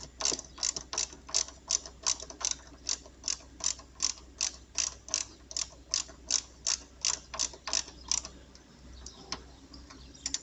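A hand tool clicking steadily, about three clicks a second, as the bolt holding the negative cables and battery switch is tightened on the chassis earth point. The clicking stops about eight seconds in.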